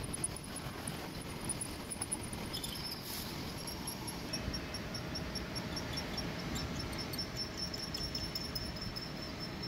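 Drill bit cutting into a cast iron flange on a running drilling machine: a steady machine hum with a thin, regular high squeak, about four a second, through the second half.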